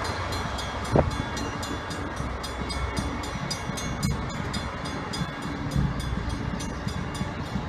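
MBTA commuter rail train with a diesel locomotive rumbling through a grade crossing as it pulls away. A crossing bell rings rapidly and evenly over it, and there is one sharp knock about a second in.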